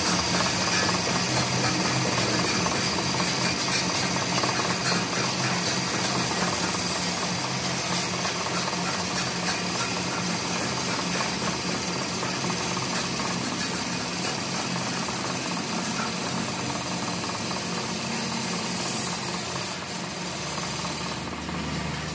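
Workshop machinery running steadily: a dense mechanical clatter over a low hum, with a constant high whine that cuts off near the end.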